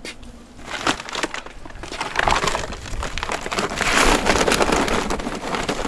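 A bag of oak charcoal being handled and opened, the charcoal pieces rattling and crunching against each other inside as the bag crinkles. The dense clatter builds about two seconds in.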